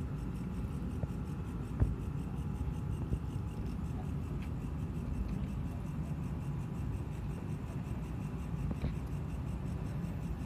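Steady low rumble of outdoor background noise with a few faint clicks, and one sharper knock about two seconds in.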